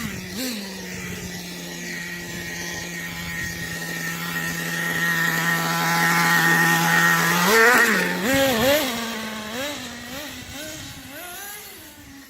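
Nitro RC car engine running at a steady high pitch and growing louder, then from about seven and a half seconds in revving up and down in repeated quick blips.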